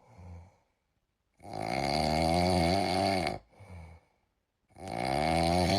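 Snoring: two long drawn snores of about two seconds each, the first about a second and a half in and the second near the end, each preceded by a short soft breath.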